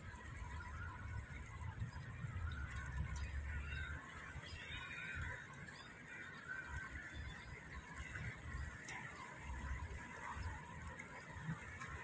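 Smooth-coated otters calling to one another with irregular, continuous high chirps and squeaks as the group swims. A low rumble runs underneath and is strongest in the first few seconds.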